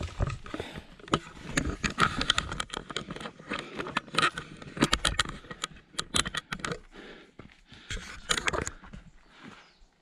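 Footsteps of people climbing a steep trail: irregular crunches, scuffs and knocks of shoes on the ground.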